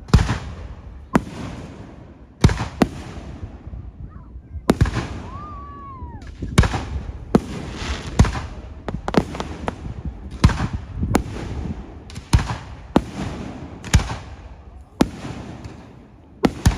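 Fireworks going off: a run of sharp bangs at uneven spacing, roughly one a second, each trailing off in an echo.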